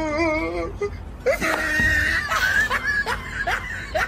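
A person laughing. A wavering, drawn-out note opens it, then a run of short rising bursts follows, about two or three a second.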